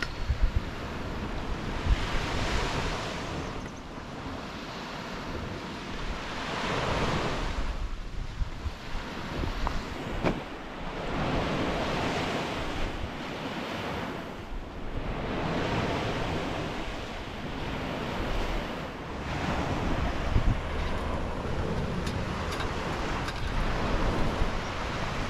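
Surf breaking on a beach, the wash of the waves swelling and falling every four seconds or so, with wind buffeting the microphone in a low rumble.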